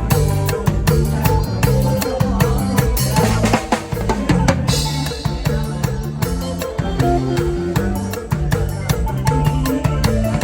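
Isan toei-style song in an instrumental passage: a drum kit keeps a steady, driving beat of bass drum and snare over a bass line, with a cymbal wash a few seconds in.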